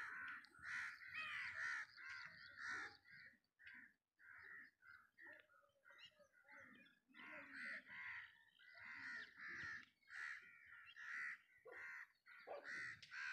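Faint crows cawing, many short calls repeated in quick succession.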